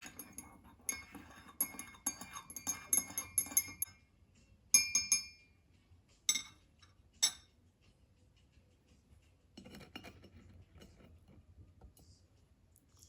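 Glass tableware clinking and ringing: a quick run of light clinks for about four seconds, one louder ringing clink just under a second later, then two sharp taps and soft handling noise.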